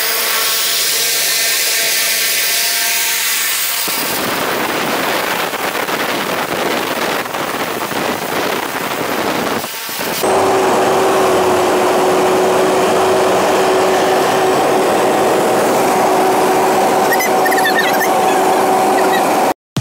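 Single-engine propeller plane's engine and propeller running loudly, with a whooshing rush of air. About ten seconds in, the sound changes to a steady drone with two held tones, heard from inside the cabin, and it cuts off abruptly just before the end.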